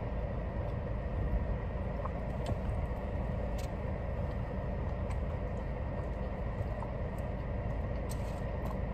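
Steady low rumble inside a parked car with its engine running, with a few faint light clicks.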